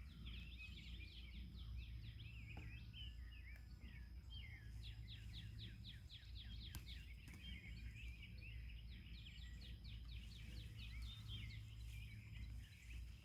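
Several songbirds singing in fast runs of repeated chirps over a low outdoor rumble, with a thin steady high tone throughout.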